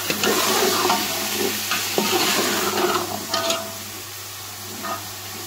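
Boiled chickpeas sizzling in hot oil with fried onions in a large metal pot, with a few scrapes and knocks of a spoon against the pot. The sizzle is louder for the first three and a half seconds or so, then settles lower.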